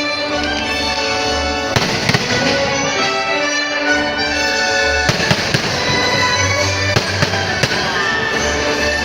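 Fireworks bursting overhead, several sharp bangs scattered through, over music playing loudly and continuously.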